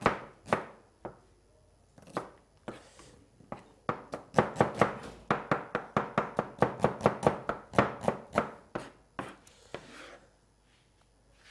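Kitchen knife slicing an onion on a cutting board: sharp strokes, a few at first, then a fast steady run of about five a second through the middle that stops shortly before the end.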